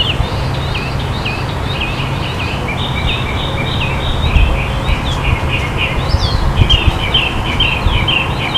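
Small birds chirping continuously, short high chirps several a second, over a steady low rumble.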